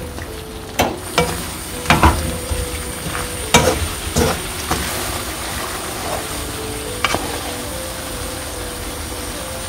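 Food sizzling as it is stir-fried in a pan, with a spatula knocking and scraping against the pan now and then, several sharp knocks in the first half.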